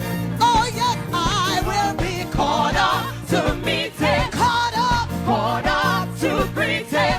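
Gospel music: a solo singing voice with wide vibrato over bass and drums.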